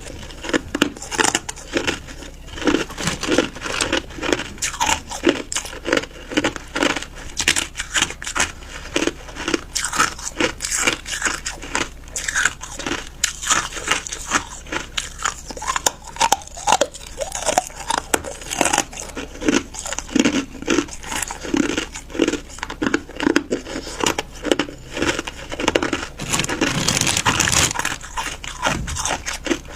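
Ice being bitten and crunched between the teeth: rapid, close-up crunches one after another, with a louder stretch near the end.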